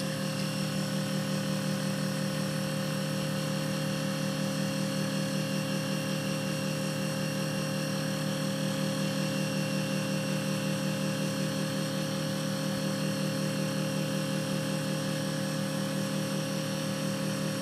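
Refrigerant recovery machine running with a steady motor and compressor hum, drawing refrigerant out of the geothermal unit.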